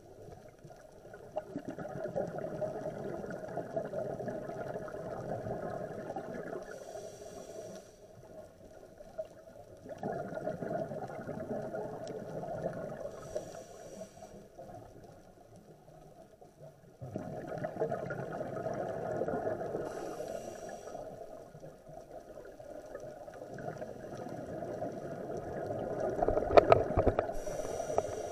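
Scuba diver breathing through a regulator underwater: four long bubbling exhalations, about every seven seconds, each with a short hiss near its end. A few sharp clicks near the end.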